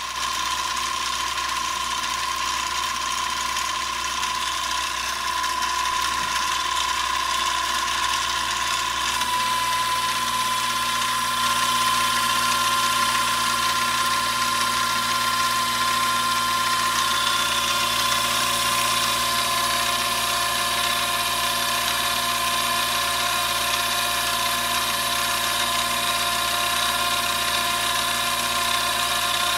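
Mini lathe running under power, with a steady whine from its steel headstock gears and motor over the hiss of the tool turning the workpiece. The pitch shifts slightly partway through, and a higher tone joins a little after halfway.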